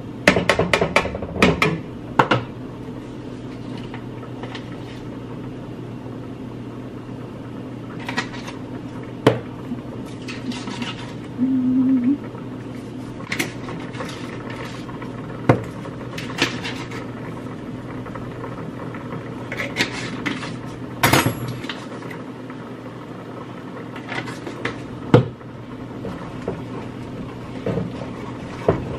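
Scattered clinks and knocks of a utensil and cookware being handled at a pan on the stove, with a quick cluster at the start and another about two-thirds of the way in, over a steady low hum.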